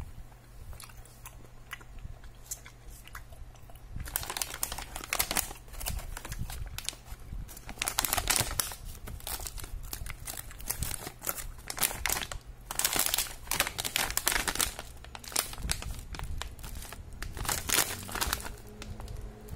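Clear plastic candy bags crinkling as they are picked up and handled, in repeated rustling bursts from about four seconds in. Before that there are only faint small clicks and rustles.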